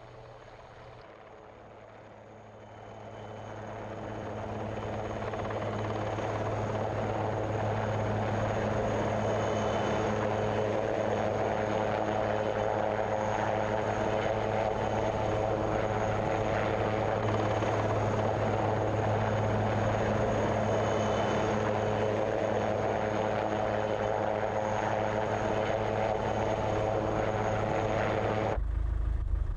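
Military helicopter hovering, its rotor and turbine sound growing louder over the first few seconds and then holding steady. Near the end it gives way abruptly to a low rumble.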